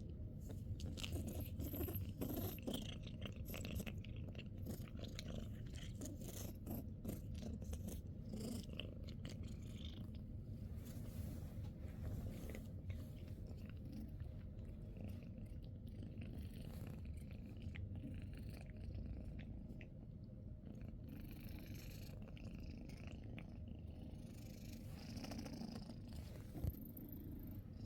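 Domestic cat purring close by, a steady low rumble, with faint scattered clicks over it.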